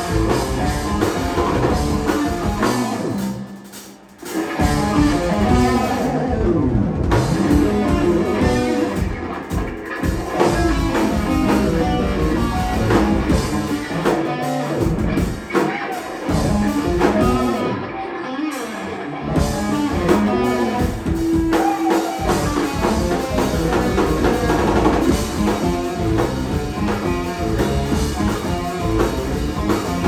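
Live rock band playing an instrumental passage on electric guitar, bass guitar, keyboards and drum kit. The band drops out for a brief break about four seconds in, then comes back in full.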